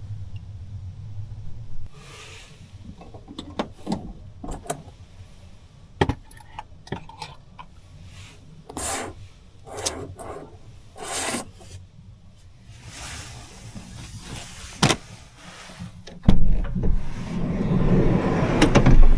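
Scattered rustling and light knocks inside a parked kei van, then about three seconds before the end a strong gust of wind buffets the van with a loud low rumble.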